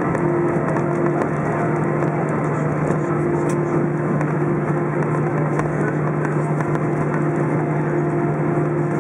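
Airbus A319 cabin noise while taxiing at low power: the engines' steady hum over a broad rush, with one low steady tone and a higher tone that comes and goes.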